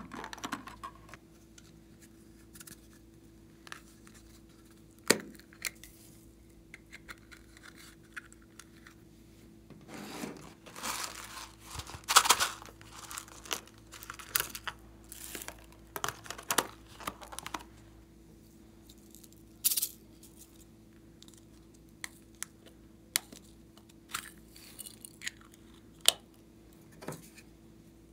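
Plastic handling sounds: scattered clicks and taps of small plastic toy cases being opened and turned over, with a longer stretch of plastic-bag crinkling and rustling about ten seconds in, over a faint steady hum.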